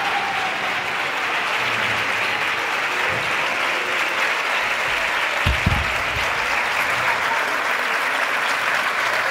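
Theatre audience applauding steadily, with a brief low double thump about halfway through.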